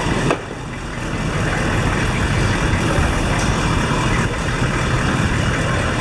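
A municipal public works truck's engine running, louder from about a second in.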